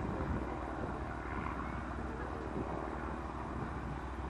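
Steady low drone of a distant aircraft engine, with outdoor background noise.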